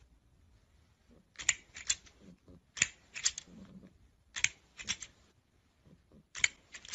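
Plastic crocodile snapper toy clacking its jaws shut, in four quick clusters of two or three sharp clicks about every second and a half.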